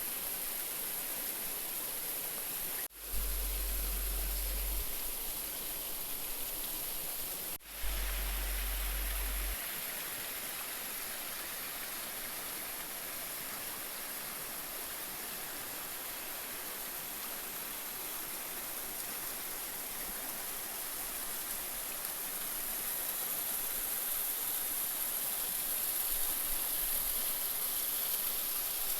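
Steady rushing of flowing river water, broken by two brief dropouts about three and seven and a half seconds in.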